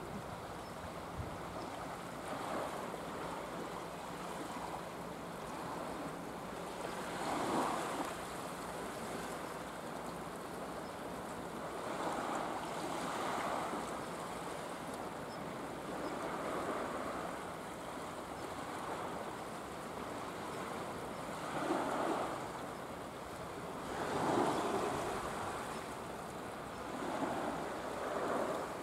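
Small waves washing onto a flat rock shore, a steady sea hiss that swells irregularly every few seconds as each wave comes in.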